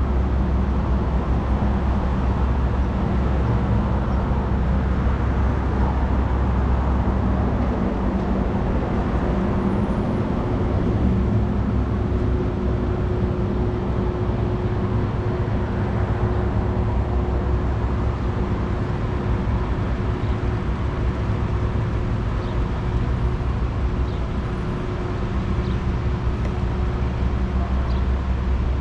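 Steady city street traffic noise: a continuous low rumble of vehicles, with a steady hum joining about a third of the way through.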